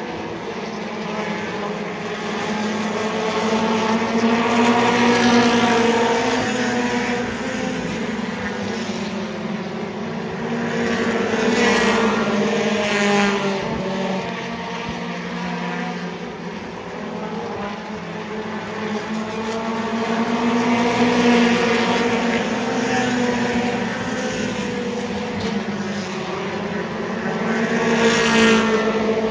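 Mini stock race cars' four-cylinder engines racing around a paved oval, a pack of several cars. The engine note rises and falls and swells loudly about every eight seconds as the field passes.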